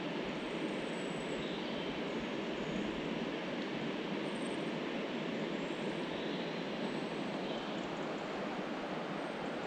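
Steady rushing of flowing river water, an even unbroken noise.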